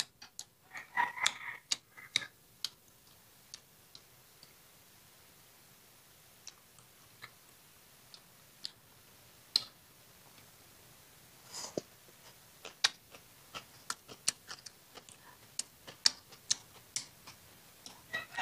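Close-up eating sounds: scattered sharp clicks and smacks while chewing a raw pepper-elder (rau cần cua) and small-shrimp salad, coming in a short cluster about a second in and a busier run in the second half.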